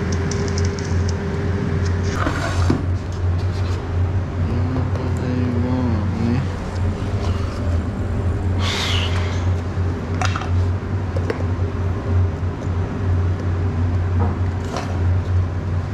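Steady low hum of kitchen machinery, such as refrigeration or ventilation, running throughout. A few short knocks and rustles come over it as containers are taken from the refrigerated prep counter and handled.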